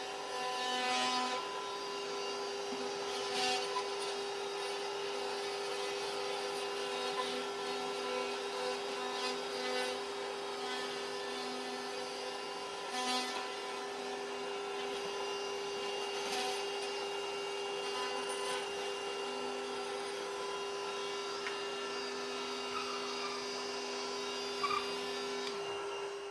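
Power tool running steadily at a constant pitch while cutting through drywall, with a rough scraping noise and a few brief louder scrapes as it works along the cut line.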